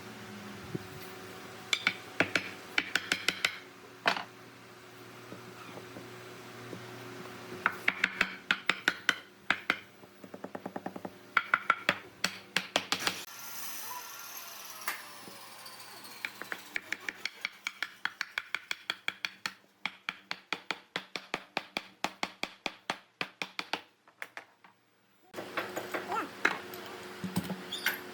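Hand-tool work on wood: sharp taps and knocks in several bursts, with a long run of quick, even taps, about four or five a second, in the second half.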